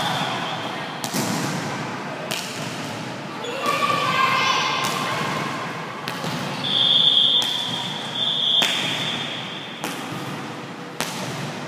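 A volleyball being played in a rally: a series of sharp slaps of hands and arms on the ball, roughly one every second or so, with players shouting calls partway through. A high, steady held tone sounds for about two seconds near the middle.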